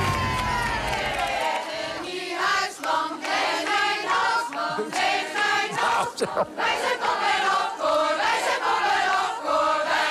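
Theme music ends about a second and a half in; then a women's choir sings together without accompaniment, many voices in short rhythmic phrases.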